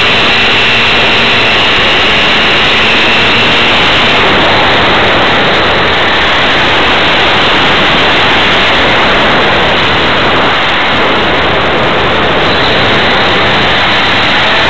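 Loud, steady rush of air over an onboard camera on a radio-controlled model airplane in flight, with a faint motor whine in the first few seconds that fades out, leaving only the wind noise.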